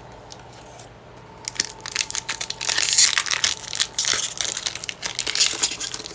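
Foil Pokémon 151 booster pack wrapper crinkling as it is gripped and torn open by hand, starting about a second and a half in and loudest about halfway through.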